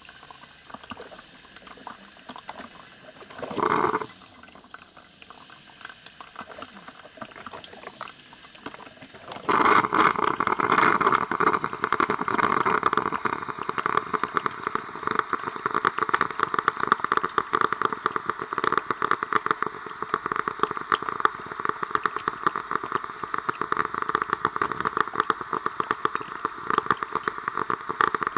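Coffee machine brewing. After a quiet stretch with one short burst about four seconds in, a loud, rough, crackling noise starts suddenly about nine and a half seconds in and keeps going steadily.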